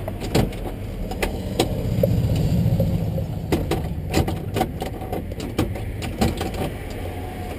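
Repeated clicks and knocks from the inside handle and latch of a VW Beetle's door, worked again and again because the broken lock won't let the door open. A steady low engine rumble runs underneath and swells for a moment a couple of seconds in.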